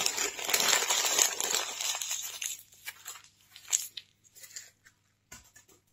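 Crumpled newspaper packing crinkling and rustling as it is handled, dense for the first two and a half seconds, then a few scattered crinkles.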